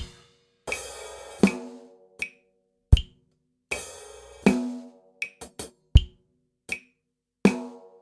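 Drum kit playing a very slow groove. Bass drum and snare alternate about a second and a half apart, with cymbal washes and hi-hat ticks between them, and a quick cluster of light hits about five seconds in.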